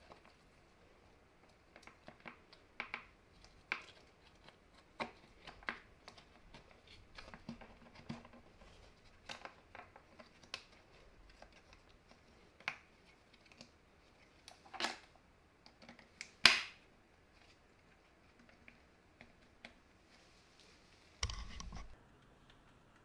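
Close handling noise of a partly dismantled cordless impact driver: scattered small clicks and taps of plastic and metal parts as the wiring and trigger switch are worked loose, with two louder knocks around the middle and a short rougher noise near the end.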